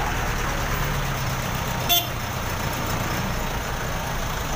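Busy street noise with a motor vehicle's engine running close by and one brief horn toot about two seconds in.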